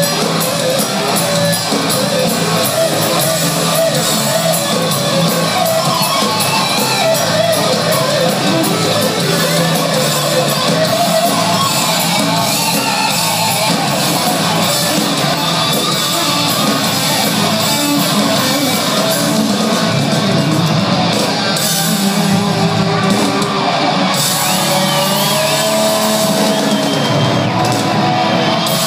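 Live rock band playing loud, with electric guitars, bass and a drum kit, heard from the audience in a large hall.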